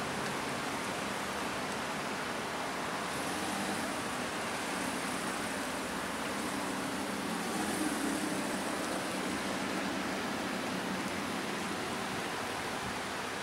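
Lamborghini Huracán LP 610-4's V10 engine running at low revs as the car creeps slowly along, under a steady hiss of background noise. The engine note swells slightly about eight seconds in.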